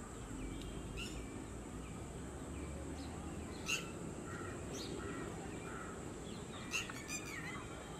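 Outdoor ambience: a steady low rumble with scattered short bird chirps, the most distinct about four seconds in and again near seven seconds.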